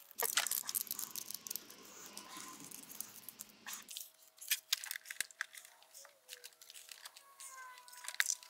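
Scattered light clicks and rustling of hands handling rubber coolant hoses, a brass tee fitting and worm-drive hose clamps, busiest in the first few seconds.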